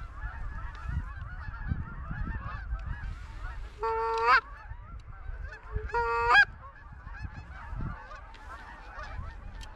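A flock of geese honking continuously, with two louder, nearer honks about four and six seconds in, over gusts of wind rumbling on the microphone.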